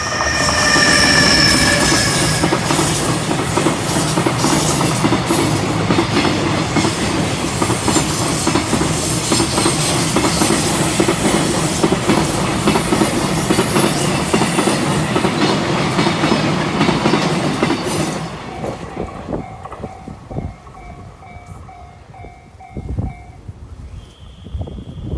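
EH500 electric locomotive and its freight wagons passing at speed: loud rolling wheel noise with rapid clickety-clack over the rail joints, and a high tone falling away in the first few seconds. The train noise fades at about 18 seconds, leaving the level crossing's warning bell ringing in even repeated dings until it stops near the end.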